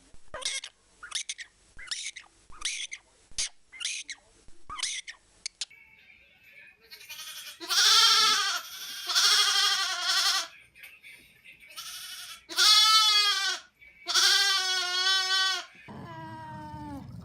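A run of short, high squeaks, about two a second, followed by a goat bleating four times in long, quavering calls.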